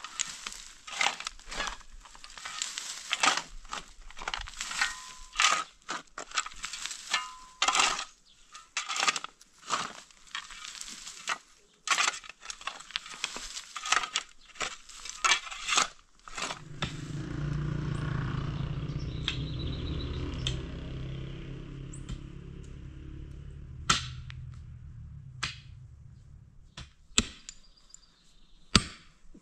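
Pickaxe striking stony ground again and again as a man digs, in an irregular rhythm of sharp blows. About halfway through this gives way to a steady low rumble lasting roughly ten seconds, followed by a few single sharp knocks near the end.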